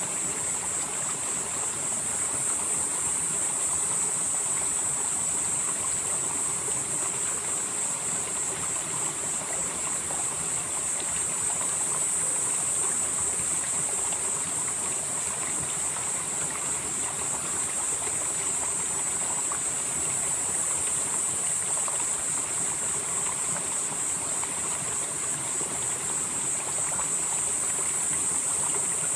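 Mountain valley stream flowing steadily, with a continuous high-pitched hiss over the rush of water.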